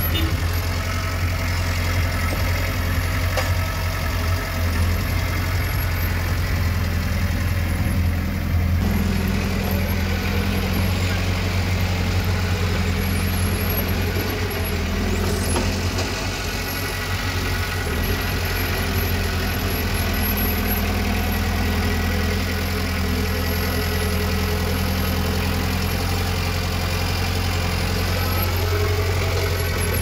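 Diesel engine of a construction machine running steadily, with a slight change in its tone about nine seconds in.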